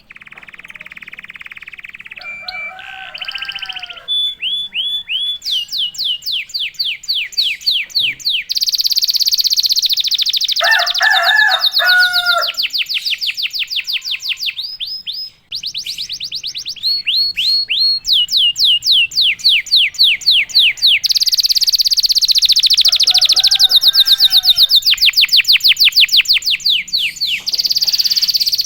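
Domestic canary in full song, loud and continuous: long rolling trills of rapid, falling high notes, broken three times by short lower chattering phrases.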